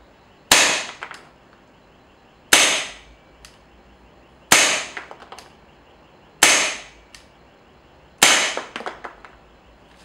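Green-gas airsoft gun fitted with its original Tokyo Marui hop-up rubber, fired five single shots about two seconds apart during a power test. Each sharp shot is followed by a few faint clicks.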